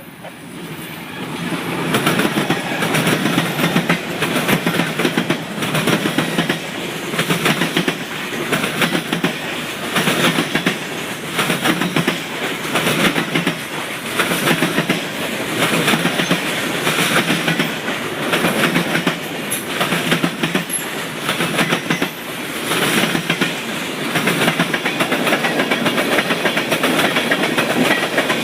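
Norfolk Southern train passing at speed, its car wheels clacking over the rail joints in a steady rhythm of about one clatter a second. The sound swells up over the first two seconds, then stays loud.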